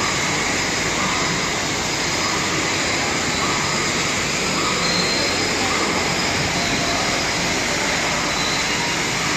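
Steady rushing of an artificial indoor waterfall, an even wash of water noise with no pauses.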